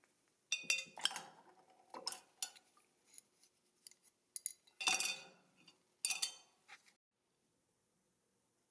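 Small metal toy parts, a steering wheel and thin rods, clinking against a glass beaker as they are set into a bath of rust remover: four clusters of sharp clinks with a brief ring, the last about seven seconds in.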